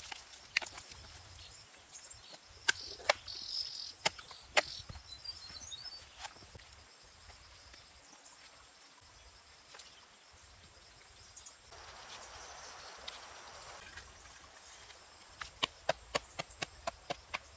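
Hand tool striking the ground while a foundation pit is dug by hand: scattered single knocks, then a quick run of about ten strikes near the end. Faint bird chirps are heard in the first few seconds.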